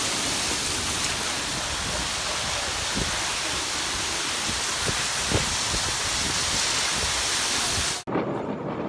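Torrential rain pouring down as a dense, steady hiss, with a few sharper hits in it; it stops abruptly about eight seconds in.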